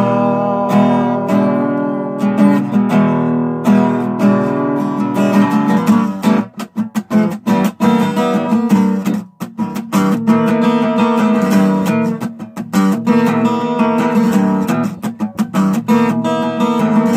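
Acoustic guitar strumming chords: the chords ring out over the first few seconds, then it is strummed briskly, with a single sung word partway through.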